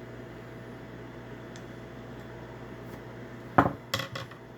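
A steady low hum, then about three and a half seconds in a sharp clack followed by a few lighter clicks as small parts of an Onity key-card door lock are handled and set down on a hard surface.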